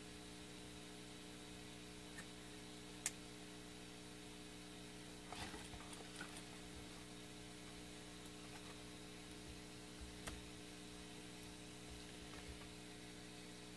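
Steady low electrical hum with a sharp click about three seconds in and a few faint taps and rustles, from multimeter test probes being handled on a wirewound potentiometer.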